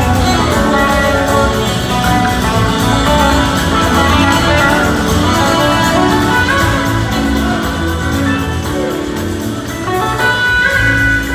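Live blues-rock band playing, led by electric guitars over a drum and bass groove, with a horn section on stage.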